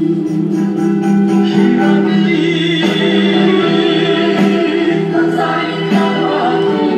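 A man singing into a microphone over a backing music track, with long held notes.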